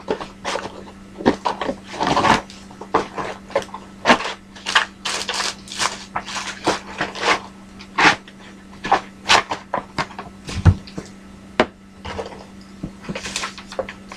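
Handling of cardboard and wooden board-game pieces and cards: irregular taps, clicks and rustles, over a steady low hum.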